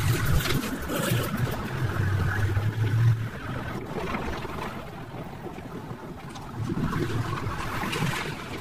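Wind rushing over the microphone while riding along a road. A heavy truck's engine hum is heard close by for the first three seconds, then fades.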